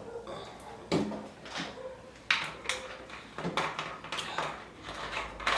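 Short clicks, knocks and brief rustling noises from eating and drinking and handling food and a drink: a sharp knock about a second in and a louder one a little after two seconds, with short rustles after it.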